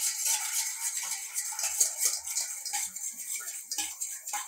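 Wire whisk stirring around a stainless steel mixing bowl, a quick, irregular run of metallic clicks and scraping.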